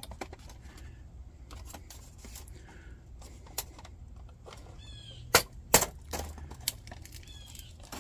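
Antique Stonebridge folding candle lantern of bare steel being handled and folded: small metal clicks and knocks, with two sharp clacks about five and a half seconds in.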